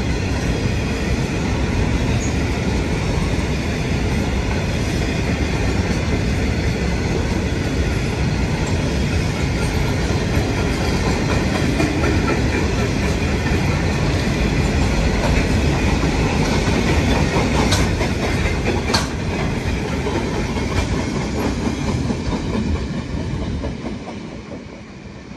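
Grain train's hopper wagons rolling past on the track, a steady rumble of steel wheels with clickety-clack over rail joints and two sharp clanks about three quarters of the way through. The sound drops away near the end.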